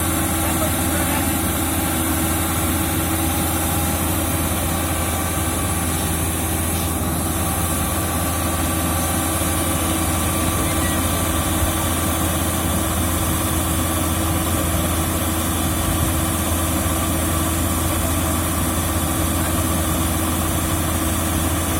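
Diesel engine of a Yanmar AG600 combine harvester running at a steady speed, an even, unchanging machine drone with a strong low hum.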